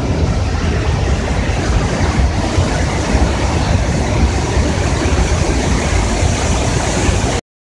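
Loud, steady rushing noise with a heavy low rumble and no clear tone, the kind picked up outdoors over open floodwater; it cuts off abruptly near the end.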